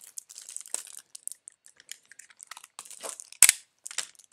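Crinkling and crackling of plastic as a trading card is handled into a sleeve and a rigid top loader, with one sharp knock about three and a half seconds in.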